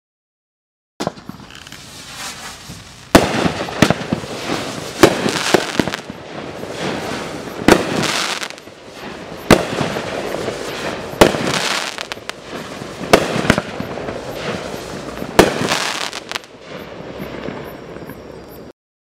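Dominator Atom Smasher 200-gram fireworks cake firing its shots. Loud bursts come about every one to two seconds, with dense crackle breaks between them. It starts about a second in and cuts off abruptly near the end.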